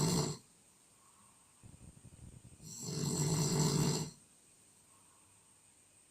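A person snoring: a loud, rattling snore lasting about a second and a half in the middle, with a shorter, softer rattle just before it and the end of the previous snore at the very start. The snores recur roughly every four seconds.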